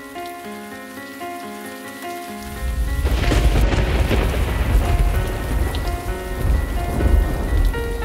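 Instrumental music: a slow melody of sustained notes, joined about two and a half seconds in by a rain-and-thunder sound effect mixed into the track, a deep rumble of thunder over steady rain.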